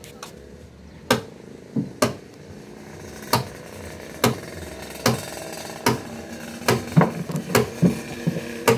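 Hammer blows on timber during boat carpentry: about a dozen sharp knocks, roughly one a second, coming quicker in the last couple of seconds.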